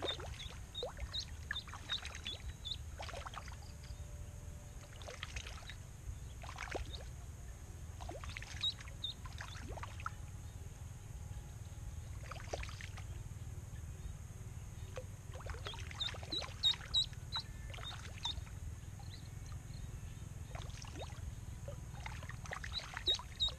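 A live duckling jigged across the water surface as snakehead bait: small splashes and dabbles of water, with a few clusters of short, high peeps.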